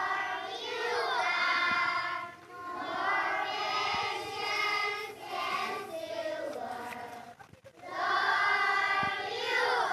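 A choir of young children singing a prayer song together without accompaniment, in sung phrases with a short pause about three-quarters of the way through.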